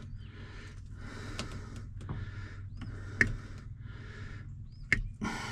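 Close, heavy breathing with a few sharp snips of cutters cutting through the truck's wiring harness, the loudest about three and five seconds in.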